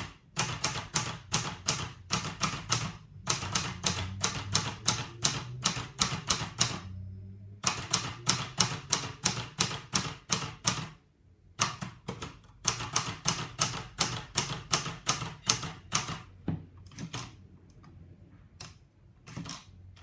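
Hermes Baby portable typewriter being typed on: runs of quick, sharp key strikes, about four or five a second, with short pauses between runs. The strikes thin out to a few scattered ones over the last few seconds.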